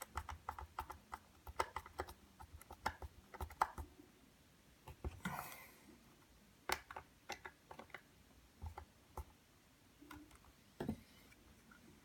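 Small screwdriver driving a screw into a 3D-printed ABS plastic case: faint, rapid clicking, about five clicks a second, for the first few seconds, then a brief rustle and a few scattered clicks.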